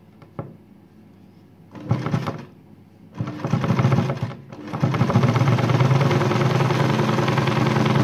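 Janome 802 sewing machine stitching zigzag embroidery. It runs in a short burst about two seconds in and again for about a second and a half, then runs steadily from about five seconds in.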